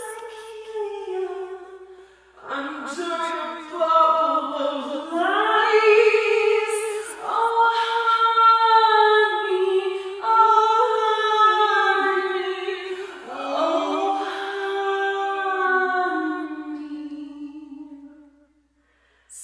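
Unaccompanied vocal singing in long held notes that slide up and down in pitch, with voices layered in places, dying away to silence near the end.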